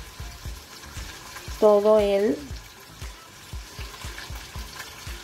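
Soft handling sounds of fingers lifting and peeling the loosened, blistered skin off an oven-roasted poblano chile that has been sweated in a plastic bag, under a steady sizzle-like hiss and faint low thuds about three or four times a second.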